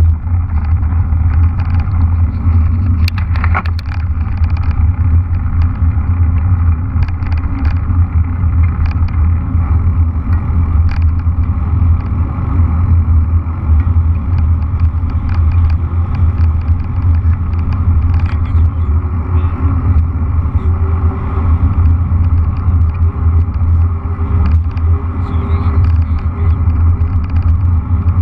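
Wind buffeting an action camera's microphone while riding a mountain bike on a paved road, a loud steady low rumble with tyre noise beneath it and a few brief clicks.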